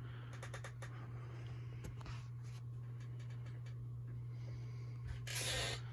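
Steady low hum in a quiet room, with a few faint ticks and a short burst of hiss near the end.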